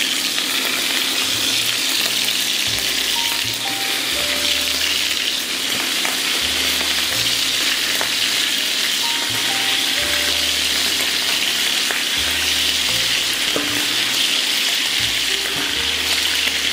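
Bone-in lamb pieces sizzling steadily in hot fat in a frying pan, searing and browning rather than stewing.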